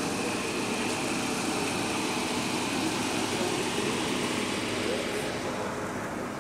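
Car engine idling steadily: a low, even hum under a constant rushing noise.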